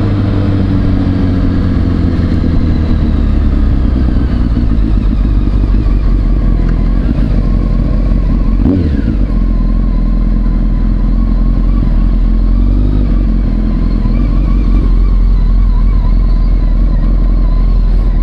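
Honda 919's inline-four motorcycle engine running at low speed, its pitch falling over the first few seconds as the bike slows and then holding steady at low revs. A single thump about halfway through.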